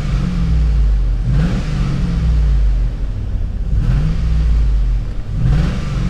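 Chevy 5.3-litre LS V8 revved in short blips about every two seconds, each rev rising quickly and settling back slowly toward idle. The engine is one that is throwing misfires on cylinders 7 and 8.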